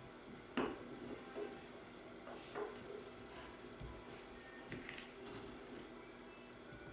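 Hands braiding thin tent cord: faint rustling of the cord with a few soft taps and clicks, the sharpest about half a second in.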